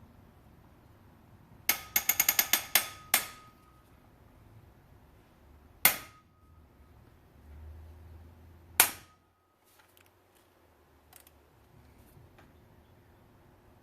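Ratchet of a digital torque-angle wrench clicking as it turns a cylinder head bolt on a Toyota 2ZR-FE engine: a quick run of about ten clicks, then two single clicks a few seconds apart. Each is followed by a short electronic beep.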